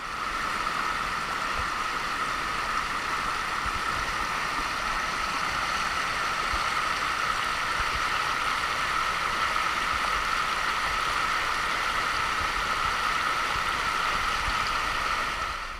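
Shallow river rushing over rocks and small rapids, a steady, even rush of water that fades out near the end.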